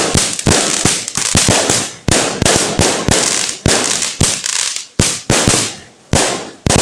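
Fireworks going off in a continuous barrage: sharp bangs at irregular intervals, two or three a second, with a crackling hiss between them.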